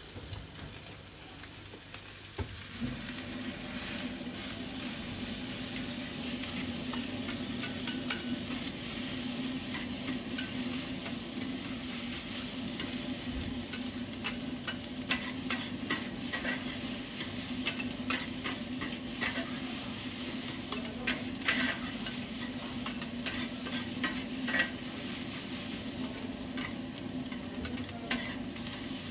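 Egg fried rice sizzling on a flat iron griddle while two metal spatulas scrape and chop through it, with frequent sharp clacks of the blades on the plate. A low steady hum sets in a few seconds in.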